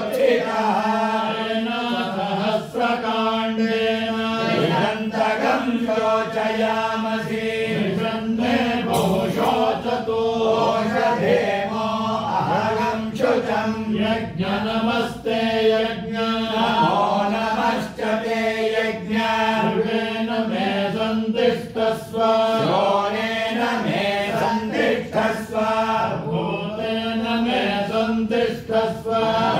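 Vedic chanting (Veda ghosha): voices reciting Sanskrit mantras continuously in a steady, rhythmic intonation that stays on a few close pitches.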